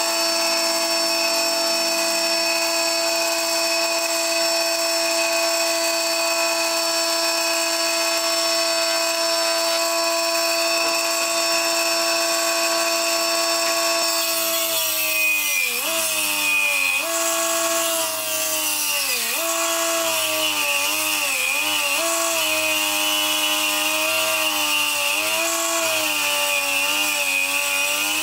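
Electric motor of a combination jointer-and-circular-saw woodworking machine running with a steady whine. From about halfway, the pitch dips and recovers again and again as a thick wooden board is fed through and cut, the motor slowing under each bite of the wood.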